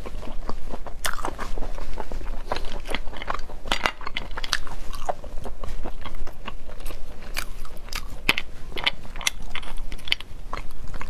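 Close-up eating of spicy sea snails: chewing, with many short, irregular clicks as the hard shells knock against each other and the plate while they are picked out and pried open with a toothpick.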